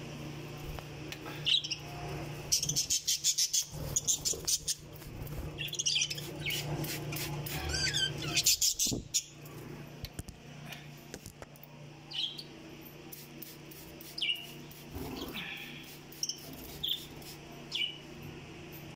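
Budgerigars chirping: quick runs of short high chirps through the first half, then scattered single calls, over a steady low hum.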